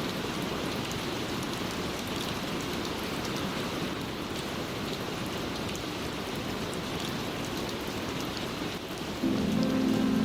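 Steady rain falling, with a low rumble of thunder. About nine seconds in, the next song's instrumental intro comes in with held, sustained notes and the sound gets louder.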